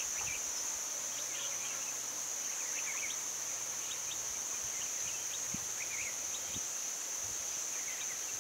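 Insects droning steadily in one high-pitched tone, with short chirps scattered through it.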